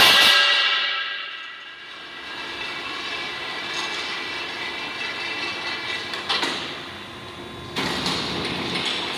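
Tsune K2 automatic circular saw machine cutting steel pipe. The pipe rings loudly at the start and the ringing dies away over about two seconds. The machine then runs steadily, with two metallic clanks at about six and about eight seconds in.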